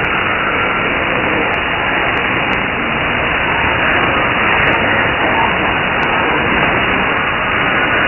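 Shortwave receiver tuned to 6930 kHz in upper sideband, giving a steady rush of static and hiss with no clear signal coming through. The sound is narrow and muffled, with nothing above about 3 kHz.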